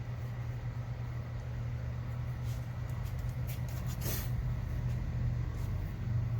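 Steady low hum with a few light clicks of handling, the sharpest about four seconds in.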